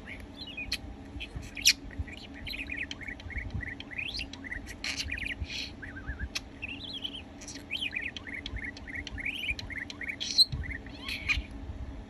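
Budgerigar warbling: a continuous run of quick chirps, chatters and clicks, with a couple of sharper clicks standing out.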